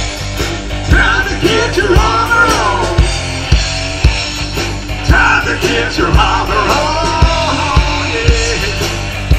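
Rock band playing live: two electric guitars, an electric bass and a drum kit, with a steady beat of drum hits about once a second.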